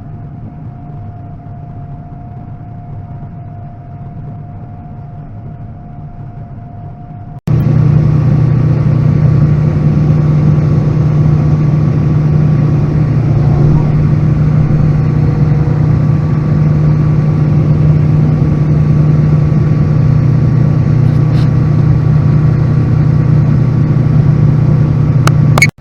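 John Deere combine running steadily while harvesting soybeans, a steady hum with a thin constant whine. About seven seconds in it turns abruptly much louder and deeper, a heavy steady drone.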